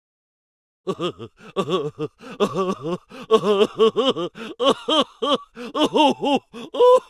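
A comic voice sound effect: a rapid string of short vocal syllables, each rising and falling in pitch, starting about a second in and running on to the end.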